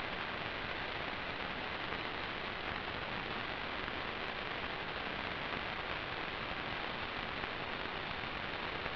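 Steady, even hiss of static with no tones or changes, typical of an analog FPV video receiver's audio channel carrying no sound.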